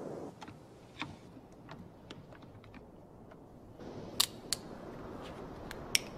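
Scattered sharp clicks and ticks over a faint low hush. The loudest come about four seconds in and again near the end.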